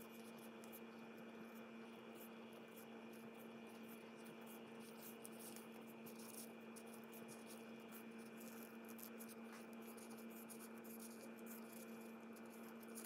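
Near silence: a faint steady electrical hum, with faint scattered soft rustles and ticks from gloved hands tearing boiled beef into fibres.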